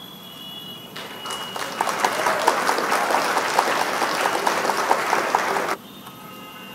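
Applause sound effect: a crowd clapping that starts about a second in, builds up, and cuts off abruptly near the end.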